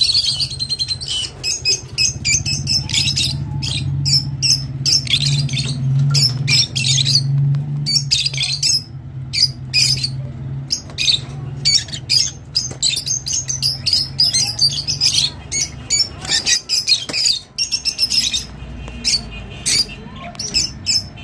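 Rosy-faced (peach-faced) lovebirds chattering together: rapid, shrill chirps and squawks tumbling over one another, over a low steady hum.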